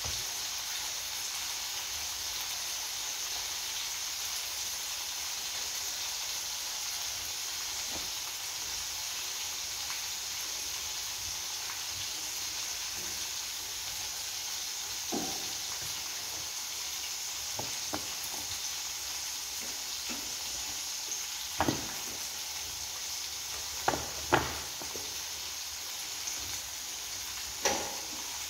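Steady sizzle of food frying in hot oil in a pan on a gas stove, with a few sharp clicks and knocks in the second half.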